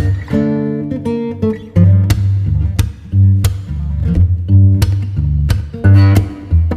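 Background music led by strummed acoustic guitar, with a steady beat and bass line.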